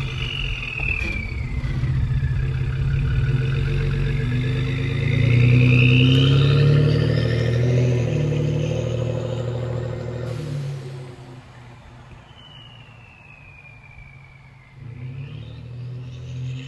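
Ford 3.5 EcoBoost twin-turbo V6 running through an SPD whistler exhaust: a deep exhaust rumble with a whistle that climbs steeply in pitch as the engine revs up, then eases off about ten seconds in. Near the end a falling whistle is followed by a rising one as the engine picks up again.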